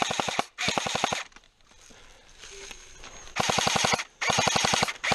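Airsoft rifle firing rapid full-auto bursts: two short bursts in the first second, a lull of about two seconds, then two more bursts.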